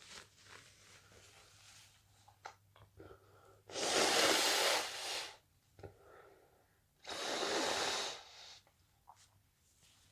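A person in a sneezing fit letting out two long, forceful blasts of breath through the nose and mouth, each over a second long and about three seconds apart, with small sniffs and breaths around them.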